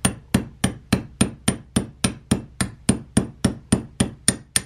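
Small brass-headed hammer tapping a slotted pin into a Franchi 48 AL shotgun's bolt to retain the firing pin: light, evenly spaced metal-on-metal taps, about three and a half a second, each with a short bright ring.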